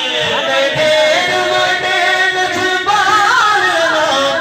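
A man's voice chanting naqabat, Urdu devotional praise recitation, through a PA system in a drawn-out melodic line of long, wavering held notes.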